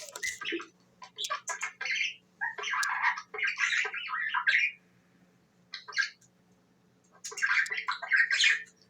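Budgerigar chattering in bursts of scratchy, squawky warbles, with pauses of a second or two between bursts.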